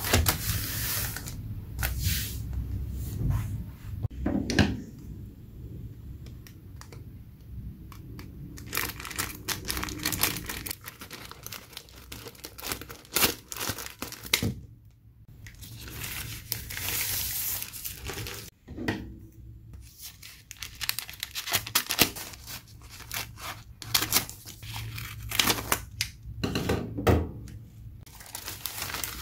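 A plastic courier mailer being handled and cut open with scissors, with crackling and tearing, then newspaper wrapping rustling and crinkling as it is unfolded by hand. The crackles come in uneven clusters with short pauses.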